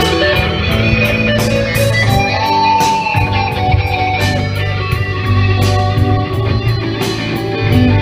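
Live band playing at a sound check: electric guitar over bass and drums, with cymbal strikes throughout and a long held guitar note a couple of seconds in.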